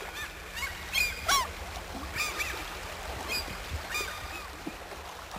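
A flock of waterbirds calling, many short, arching, high-pitched calls overlapping one after another, over a low steady rumble.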